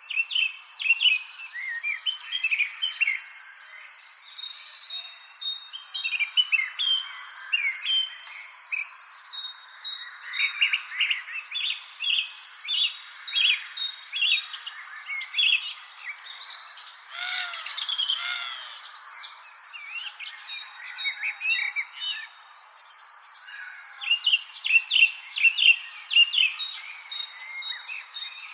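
Several songbirds chirping and singing in an evening chorus, short varied phrases coming thick and fast, over a steady high-pitched trill.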